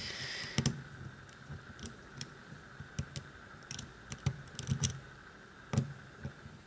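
A lock pick working the pins of a VIRO Panzer padlock: a short scrape at the start, then irregular small metallic clicks, about a dozen.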